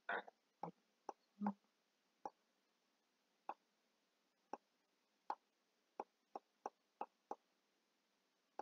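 Faint computer mouse clicks, about a dozen short clicks at uneven intervals, coming faster near the end, while a compass cross is drawn and labelled on a digital whiteboard. The clicks stand over an otherwise near-silent background.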